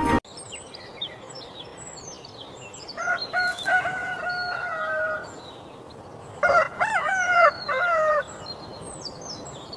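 A rooster crowing twice, with small birds chirping throughout.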